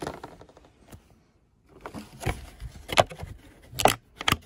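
Stiff clear plastic clamshell packaging crackling and snapping as it is handled and pulled open, with several sharp crackles in the second half.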